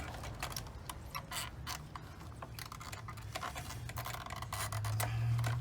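Irregular small clicks and scrapes of hands working the plastic quick-connect fittings and lines on a fuel pump assembly, with a low steady hum underneath.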